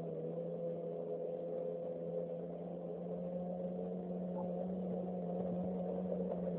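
Jet ski engine running at a steady pitch, a continuous drone with no breaks.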